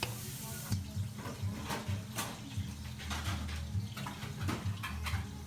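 Water splashing, with scattered short knocks and clinks over a steady low hum.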